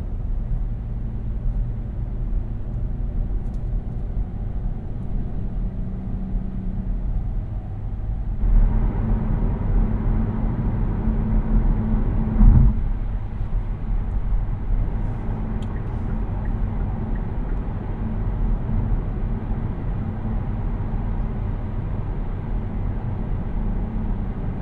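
2018 Kia Niro 1.6 GDi Hybrid driving, heard from inside the cabin: a steady low road and tyre rumble that gets louder and rougher about eight seconds in. There is a single thump about halfway through.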